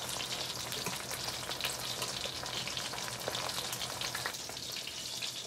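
Fish pieces shallow-frying in hot oil in a stainless pan: a steady sizzle dotted with many small crackles and pops.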